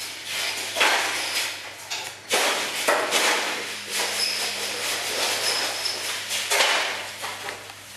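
Sledgehammer hitting the sheet-metal chassis of a gutted CRT television: four hard hits, one about a second in, two close together near the three-second mark, and one near the end, with metal and debris rattling between them.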